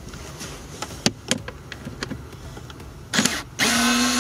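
Cordless electric screwdriver with a Torx 25 bit: a few light clicks and taps as the bit goes onto a screw, a short burst of the motor, then near the end the motor runs steadily with a whine as it backs out a blower motor housing screw.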